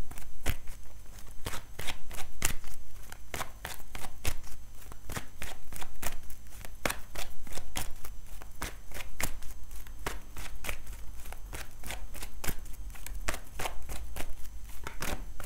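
A deck of oracle cards being shuffled by hand: a quick, irregular run of card slaps and clicks, several a second.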